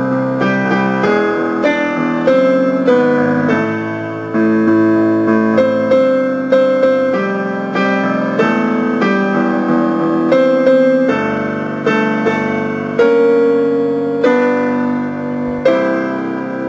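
Piano playing the closing bars of a choral score's vocal parts as a rehearsal track: chord after chord, then a last chord struck near the end and left to ring.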